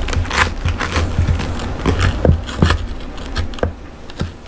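Knife sawing through a crisp toasted sandwich on a wooden cutting board: a run of crunching and crackling from the browned crust, with a few sharper cracks in the middle, fading near the end.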